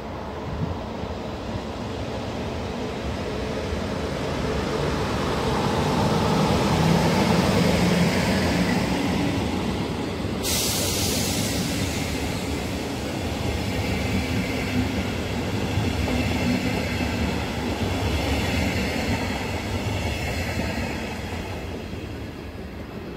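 DB electric locomotive and its red double-deck passenger coaches passing close by: a steady rumble of wheels on rails that swells to its loudest about eight seconds in. There is a brief sharp hiss about ten seconds in, and a thin wheel squeal through the second half as the coaches go by.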